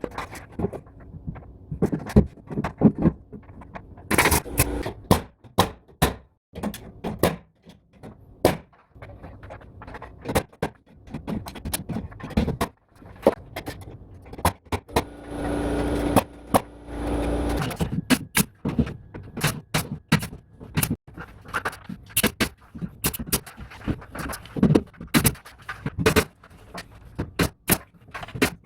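Carpentry work: a long, irregular series of sharp knocks and impacts as wood is handled and fastened, with a steady machine sound for about two seconds past the middle.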